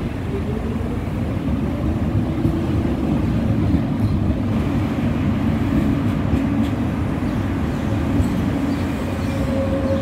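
Tram running close by: a steady low rumble of wheels on rails, with a faint electric motor whine that grows clearer near the end.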